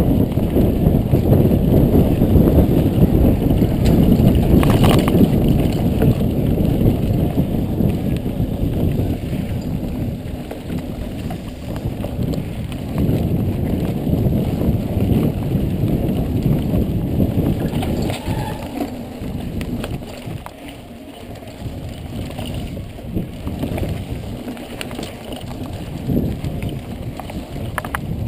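Mountain bike riding fast along a dirt singletrack trail: tyres rumbling over the ground, with the bike rattling and wind on the GoPro's microphone. The rumble is heaviest in the first half and eases about twenty seconds in.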